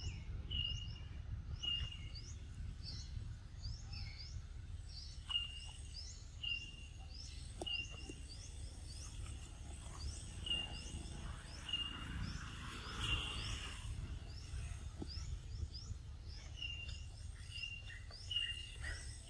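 Birds calling: a short even note repeated at irregular gaps of about a second, and a running string of quick curved chirps, over a steady low background rumble.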